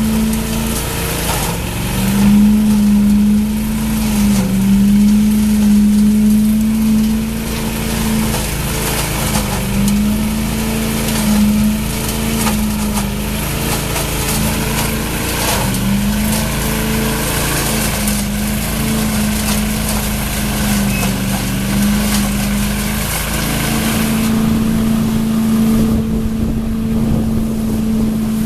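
Scag Giant-Vac truck loader running, its engine and impeller fan drawing leaves and grass clippings up the intake hose with a rushing, crackling rattle of debris. The engine pitch dips briefly several times as the hose takes in clumps of the pile, then runs steady for the last few seconds.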